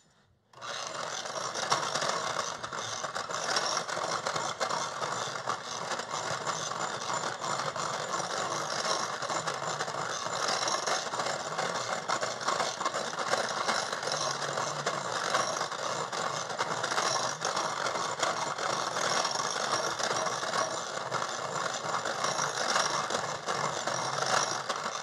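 Electric hand mixer running steadily, its beaters whipping egg whites and sugar in a glass bowl toward stiff, glossy peaks. It starts about half a second in and cuts off near the end.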